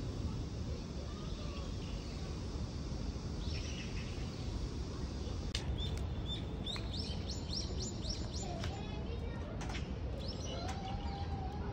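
Birds calling over a steady low outdoor rumble. There are a few short rising calls, and a quick run of chirps through the middle, with a few sharp ticks scattered among them.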